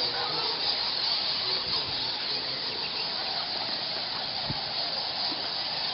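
A huge roosting colony of Geoffroy's rousette fruit bats calling all at once: a dense, continuous chorus of countless high squeaks.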